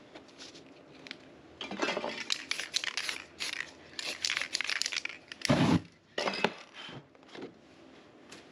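Aerosol spray can hissing in a run of short, choppy bursts, the loudest and fullest about five and a half seconds in, with faint handling noise between.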